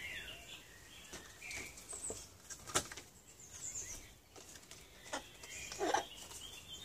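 Paper photo cards being handled and sorted, with light rustling and a sharp tap a little under three seconds in, over faint bird chirps; a short sound falling in pitch comes near the end.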